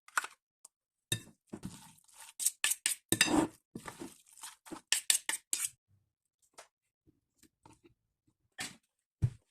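A utensil clinking and tapping against a bowl as salad is mixed: a quick run of short clicks and taps, then scattered faint taps and one duller thump near the end.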